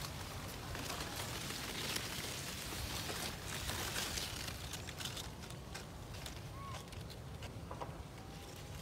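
Dillenia indica (elephant apple) leaves rustling, with soft handling clicks as a hand moves the branch and holds a fruit. Under it runs a low rumble of wind on the microphone.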